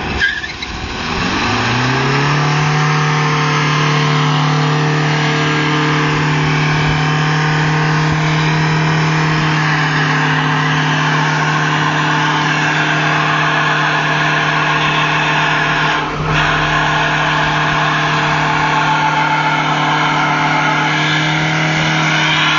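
VW Golf III 1.9 TDI four-cylinder turbodiesel revved up over the first two seconds and then held at high revs for a burnout, its front tyre spinning and scrubbing on the asphalt. The engine note stays steady, with one brief dip in revs about two-thirds of the way through.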